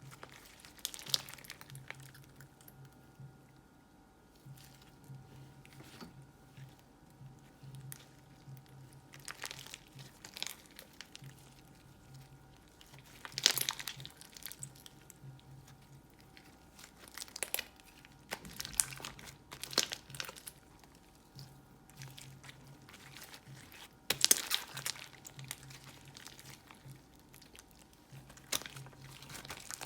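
Slime being squeezed and pressed by hand, giving irregular crackling and crunching pops, with the loudest pops about 13 seconds and 24 seconds in.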